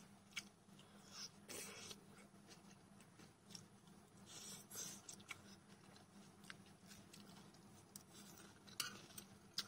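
Quiet eating: soft chewing and slurping of instant jjajang noodles, with a few light clicks of metal chopsticks against the plate.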